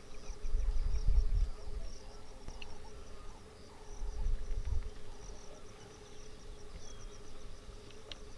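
Insects chirping in quick, evenly repeated high pulses over a steady hum, in the natural ambience of the bush. Two low rumbles stand out above them, about a second in and again around four seconds in.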